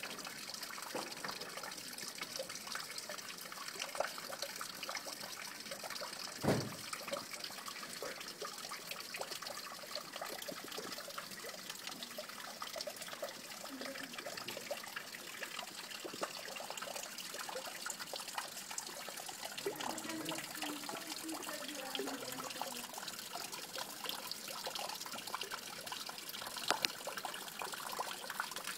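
Steady trickle of running water, with one knock about six and a half seconds in.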